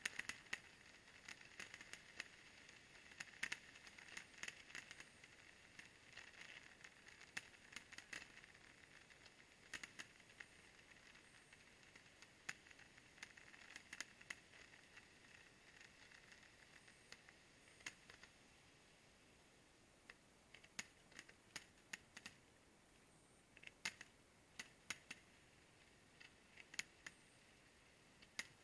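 Faint fireworks popping and crackling: many sharp irregular pops, some in quick clusters, over a low steady hiss.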